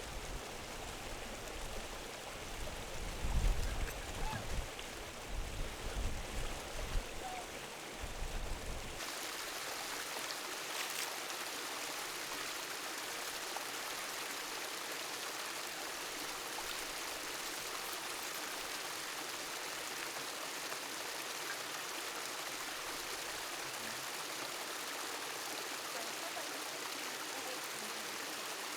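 Gusty wind buffeting the microphone with uneven low rumbles, then an abrupt change about nine seconds in to a steady, even rush of flowing water.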